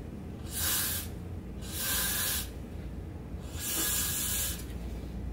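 Aerosol hairspray can sprayed onto the hair in three short bursts of about a second each.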